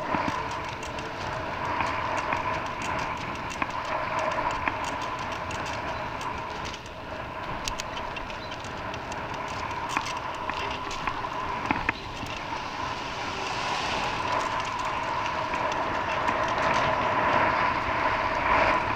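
A vehicle on the move: steady running noise with a whine and scattered clicks and knocks, growing louder toward the end.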